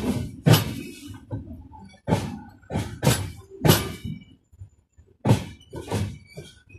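Passenger coach wheels knocking over rail joints and points on a slow departure: about eight sharp, irregularly spaced clunks, with a short lull just past halfway.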